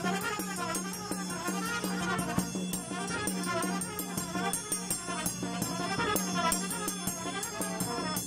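Romanian traditional brass band (fanfară) marching and playing a tune: trumpets, clarinet and a low brass bass carry the melody over a steady beat of bass drum with a mounted cymbal.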